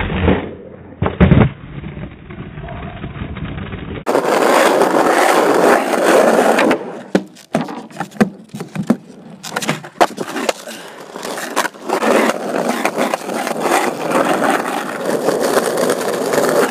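Skateboard wheels rolling over rough pavement, with sharp clacks and knocks of the board's deck and trucks hitting the ground. One loud knock comes about a second in, and a quick run of clacks follows later on.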